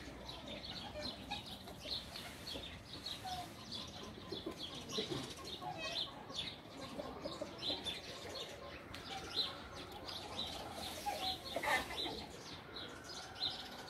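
Small birds chirping in many short, high calls over a faint steady background hiss.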